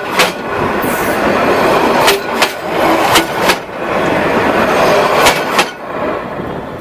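Passenger train carriages rolling directly overhead, heard from between the rails: a steady rumble of steel wheels with sharp clacks in pairs as each bogie's wheelsets cross a rail joint. The sound falls away near the end as the last carriage clears.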